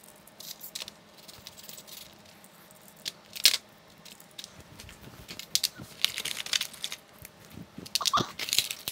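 Hard plastic clicks, taps and light rattles of small Hexbug BattleBots toy robots being handled, fitted together and set down on a plastic arena floor, with a sharp single click about three and a half seconds in and quicker runs of taps in the second half.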